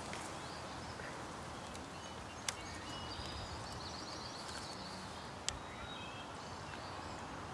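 Woodland ambience: a steady background hiss with faint bird chirps, and two short sharp clicks, one about a third of the way in and one near three-quarters.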